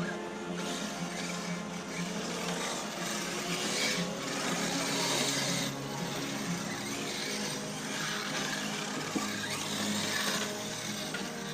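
Arrma Mojave 6S, a brushless electric RC desert truck, driving on dirt: a mechanical whir from the drivetrain and the scrape of tyres on loose ground, growing louder and fainter by turns.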